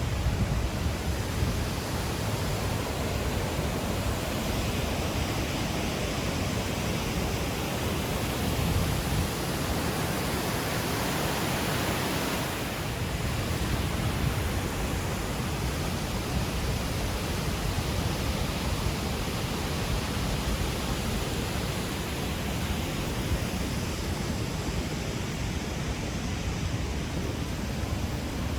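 Naena Falls, a large waterfall carrying a heavy volume of water, making a steady, even rush.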